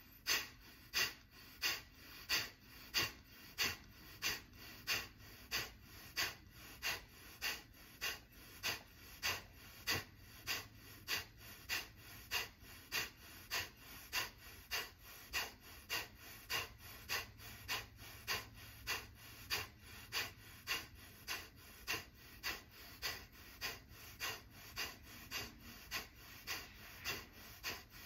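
Kapalbhati breathing: a long, even run of short, forceful exhales through the nose, about two a second, each pushed out by a sharp pull of the diaphragm, with the inhales left to happen on their own between them.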